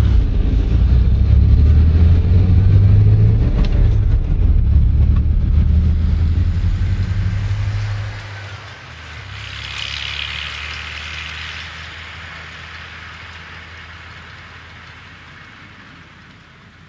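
A vehicle engine running with a loud, low, steady rumble that drops off sharply about eight seconds in, followed by a fainter hiss that swells and then fades away.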